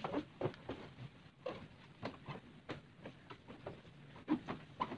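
Wrung-out absorbent synthetic chamois cloth wiping over the wet plastic body panels of a scooter, in many short, irregular rubbing strokes with brief squeaks.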